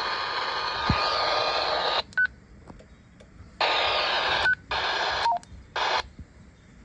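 Radio receiver giving bursts of static: one long burst of about two seconds, then three shorter ones, each cutting in and out abruptly. Short electronic beeps come between the bursts.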